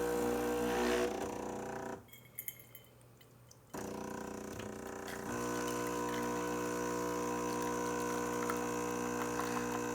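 Jura A1 bean-to-cup espresso machine's pump humming as it brews coffee. It stops for about two seconds with a couple of faint clicks, then starts again and gets a little louder about five seconds in.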